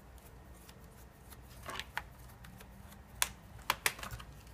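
Scattered light clicks and taps of plastic from opening a laptop's small bottom access panel over the RAM, with a cluster of sharper clicks a little past the middle.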